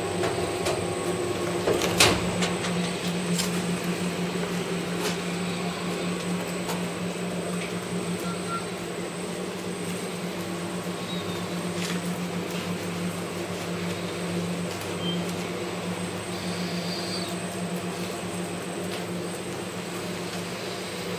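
Steady mechanical hum of a running rotary heat press and the workshop machinery around it. A sharp knock about two seconds in, with a few faint clicks later on.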